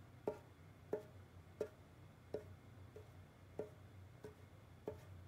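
Sharp, evenly spaced ticks, about one and a half a second, each with a short hollow ring and every other one a little weaker, over a low steady hum.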